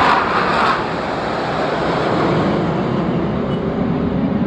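Jet noise from a formation of BAE Hawk jets passing overhead: a steady, broad roar that is louder in the first second and then eases slightly.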